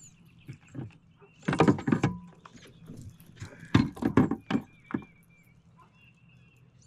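A cluster of knocks and clatter about one and a half seconds in, then another quick run of sharp knocks from about four to five seconds in, over a faint steady low hum.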